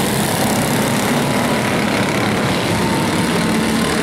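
Engines of several quarter midget race cars running together, a steady drone.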